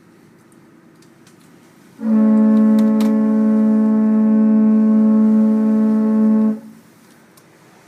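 Motor yacht's foghorn sounding one long, steady blast of about four and a half seconds, blown automatically by its whistle controller. It is the fog signal of a power-driven vessel making way in fog.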